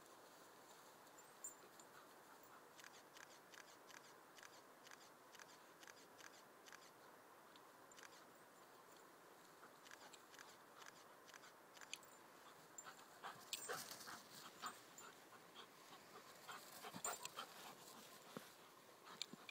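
Faint scuffling of a young German Shepherd and an English Springer Spaniel puppy playing together: many short rustles and clicks, busiest about two-thirds of the way in and again near the end.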